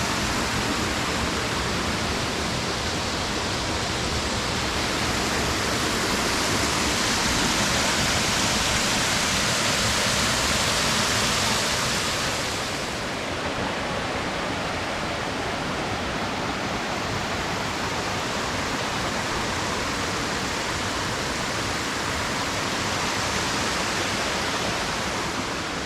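Waterfall rushing: a steady roar of falling water that becomes a little quieter and duller about halfway through.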